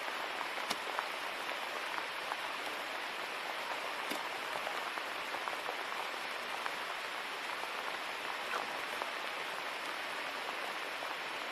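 Steady rain falling, an even hiss with a couple of faint sharp ticks of drops.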